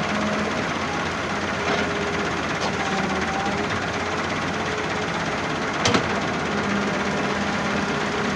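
A heavy machine's engine running steadily, with one sharp knock or clank about six seconds in.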